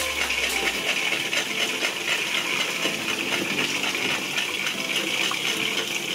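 Tap water splashing onto a spinning homemade water wheel of plastic ice-cream-spoon paddles and into a plastic basin: a steady, fine spattering.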